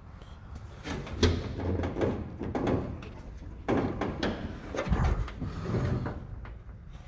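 Chevelle hood being worked on billet hood hinges: two bouts of metal hinge movement with knocks and a clunk in each.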